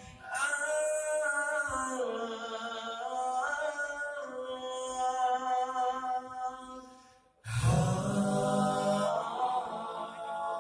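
Male nasyid group singing sustained chords in close vocal harmony. About seven seconds in the chord fades to a brief near-silence, and the voices come back in loudly with a deep bass part. The phone recording sounds muffled, as if underwater.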